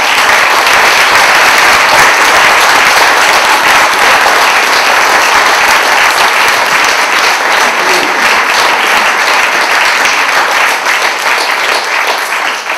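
Loud, sustained audience applause, thinning out near the end.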